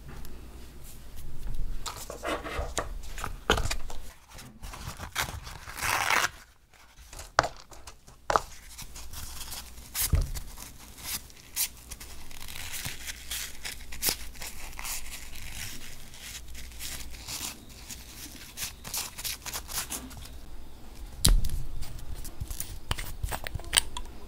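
Close-up nail-care handling sounds: snips and scrapes of a stainless cuticle nipper at the cuticles, then a cotton pad rubbing over the nails, with many small sharp clicks throughout. A sharp knock comes about three quarters of the way through, and near the end a nail-stripper bottle's brush cap is twisted open.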